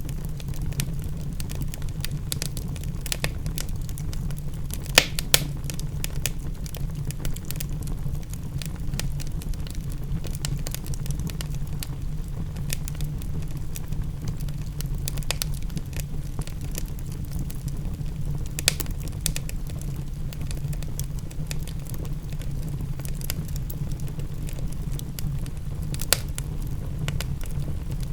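Wood fire in a fireplace crackling, with irregular small pops and a few sharper, louder snaps, over a steady low rumble.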